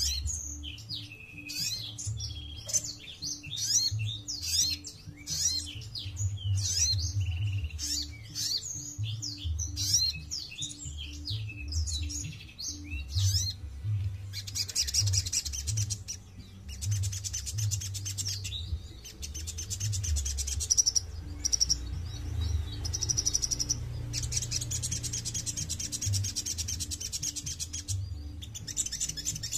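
Caged sunbird singing: quick high twittering chirps through the first half, then repeated long, very fast buzzing trills with short breaks between them.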